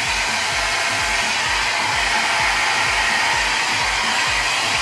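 Handheld hair dryer blowing steadily, a constant even rush of hot air as it is moved over the hair.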